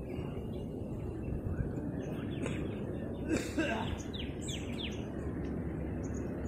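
Steady low outdoor background noise with a bird calling over it: a run of short, falling chirps about three to four and a half seconds in, and a few high, thin notes afterwards.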